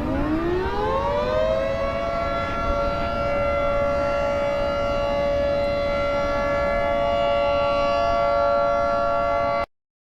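Outdoor warning siren winding up over about a second and a half, then holding a steady two-note chord. It cuts off abruptly near the end, with no wind-down.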